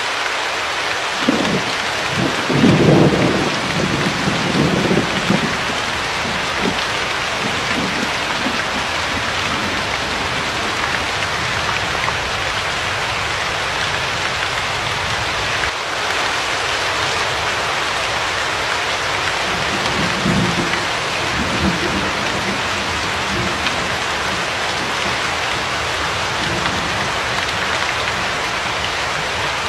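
Steady heavy rain with rolls of thunder: a long low rumble starting about a second in, loudest about three seconds in, and a fainter one about twenty seconds in.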